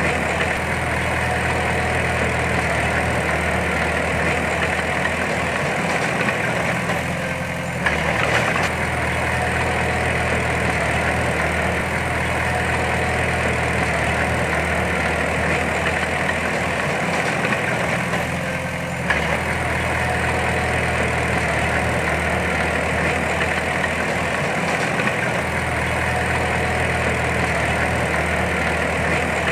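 Heavy diesel engine of earth-moving machinery running steadily, with two short dips in level, each ending in a sharp knock, about seven and eighteen seconds in.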